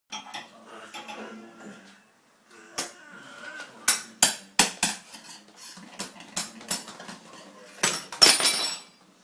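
A metal spoon clinking against a dishwasher: about a dozen sharp, ringing strikes, then a brief rattling clatter near the end.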